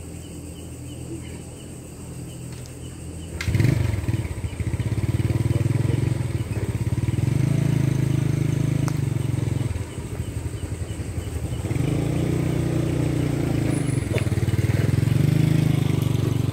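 A small engine starts up suddenly about three and a half seconds in and keeps running, rising and falling in level.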